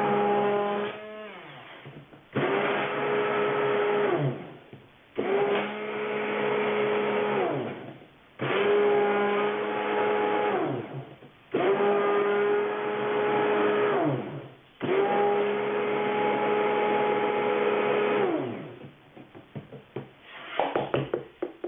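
Handheld stick blender run in short pulses: about five bursts of two to three seconds, each starting abruptly at a steady hum and winding down in pitch as it is switched off. It is emulsifying a warm BTMS, water and oil conditioner mix, which is turning frothy.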